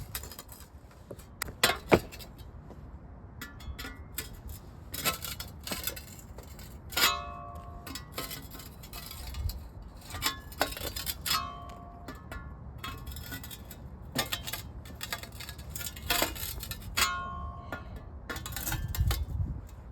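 Patio pavers knocking and clinking against one another as they are shoved together to tighten the joints: irregular sharp clacks, some with a brief ringing note, every second or two.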